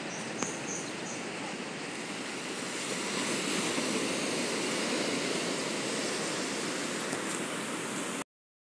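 Ocean surf breaking and washing on a sandy beach, a steady rushing that swells about three seconds in. The sound cuts out abruptly just before the end.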